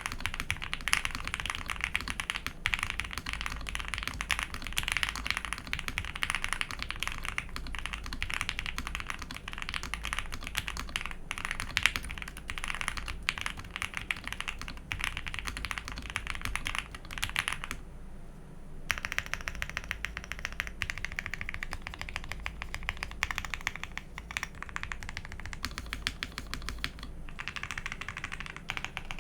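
Fast, continuous typing on a Jelly Epoch mechanical keyboard with PE foam, a polycarbonate plate, L+F Banana Splits linear switches and GMK keycaps, with a deep, marbly thock. The PE foam mod gives it that thock. The typing breaks off for about a second roughly two-thirds of the way through, then resumes.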